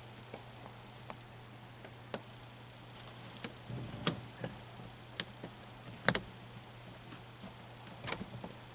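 Several sharp, separate clicks and knocks from hands working at a 1957–59 Chrysler dashboard push-button transmission panel, the loudest about six seconds in, over a faint steady low hum.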